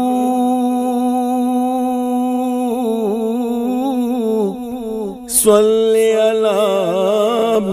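A man reciting a naat, singing without instruments. He holds one long note for about five seconds, wavering ornaments on it near the end. After a short break with a brief sharp noise, he starts another long held phrase.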